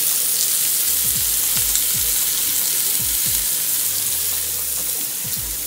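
Raw beef burger patties sizzling in a hot ridged grill pan: a steady frying hiss that eases slightly near the end.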